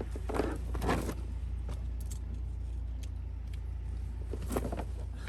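Subaru Impreza WRX engine idling with a steady low hum, with a few light clicks and rattles of handling a scan tool and its cable.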